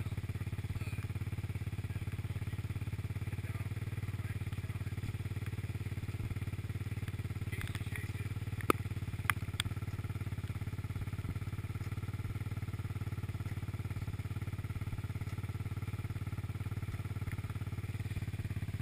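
ATV engine idling steadily with no revving, with two sharp clicks a little after halfway.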